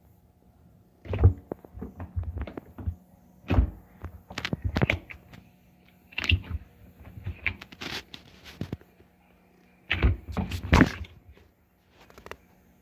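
Washing machine wobbling, its cabinet banging and thumping in irregular clusters of knocks with short quiet gaps between.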